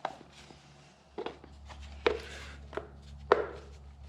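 A handful of sharp knocks and clunks, about one every second, from parts and tools being handled on a workbench, over a low steady hum.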